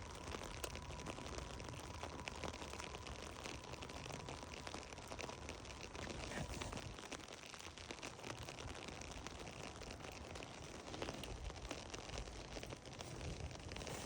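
Rain falling on an umbrella held overhead: a steady hiss made of many small, dense taps.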